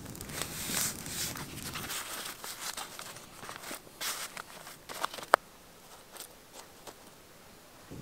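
Green husks being torn and peeled off fresh ears of corn by hand: crackly tearing and rustling, with one sharp snap about five seconds in.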